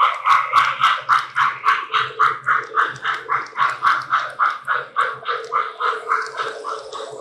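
Electronic steam-locomotive chuffing from an O-gauge model train's sound system, a steady beat of about four chuffs a second that eases slightly. A faint high hiss comes in about six seconds in.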